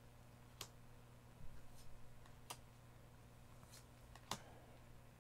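Paper trading cards being flipped through by hand, giving four faint ticks as cards snap against one another, the last the loudest, over a low steady hum.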